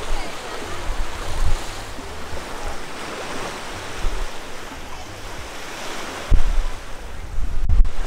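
Surf washing onto the beach, with gusts of wind buffeting the microphone that grow stronger in the last couple of seconds.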